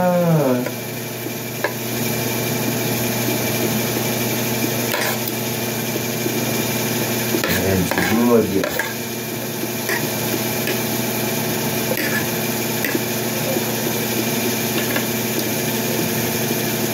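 Metal spoon and fork clinking and scraping lightly on a ceramic plate during eating: a few faint clicks scattered through, over a steady background hum. A brief murmur of voice about eight seconds in.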